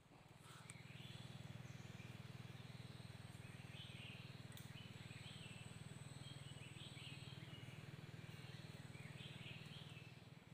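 Faint, scattered bird chirps over a steady low hum.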